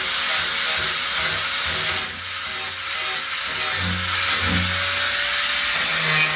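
Corded angle grinder with a disc running and grinding fiberglass, a steady loud grinding noise that dips briefly about two seconds in.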